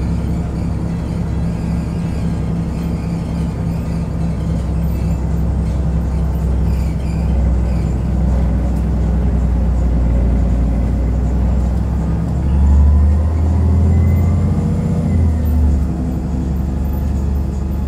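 Heuliez GX127 city bus's diesel engine running under way, heard from inside the bus as a steady low drone. About twelve seconds in the pitch climbs and the drone grows louder, then it eases back after about fifteen seconds.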